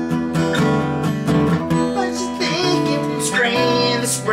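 Background music: strummed acoustic guitar chords, with a voice singing a wavering line about halfway through.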